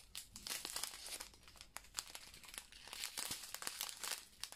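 Small clear plastic bags of round resin diamond-painting drills being handled, the plastic crinkling with scattered small clicks and crackles.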